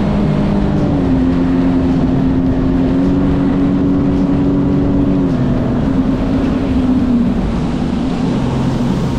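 2015 Sea-Doo GTX iS Limited 260 personal watercraft under way. Its engine note steps up about a second in, holds, then eases down after about five seconds and again near the end, over a steady rushing noise.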